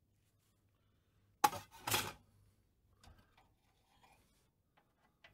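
Two metallic clanks about half a second apart, the second longer and rattling, as a loose pressed-steel toy-truck part is put down; faint clicks and rustles of parts and wires being handled follow.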